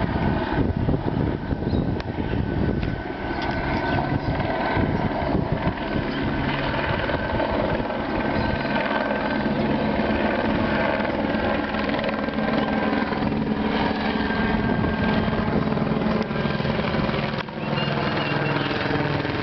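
Firefighting helitac helicopter circling overhead: steady rapid rotor beat with a high whine, its pitch slowly shifting as it turns.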